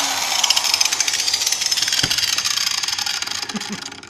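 Small angle grinder spinning down after being switched off, its high whir with a fine rapid crackle fading steadily away over about four seconds. A few light knocks come about halfway through and near the end.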